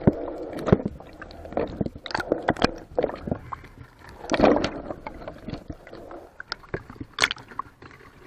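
Water sloshing and splashing close to the microphone, with irregular sharp knocks and clicks.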